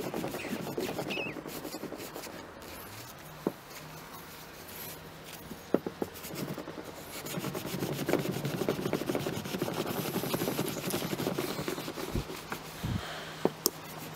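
A cloth scrubbing hard over an aluminium bicycle brake caliper arm, buffing off dried aluminium polish in quick back-and-forth strokes. It starts softer and gets louder about halfway in, with a few small knocks in between.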